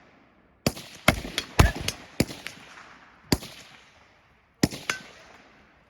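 Rifle shots from several shooters firing at once: about eight to ten sharp cracks at irregular spacing, clustered in the first couple of seconds, each trailing off in an echo.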